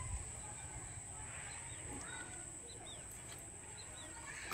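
Birds chirping outdoors: a scatter of short, high, falling chirps and a rising call, over a steady low rumble.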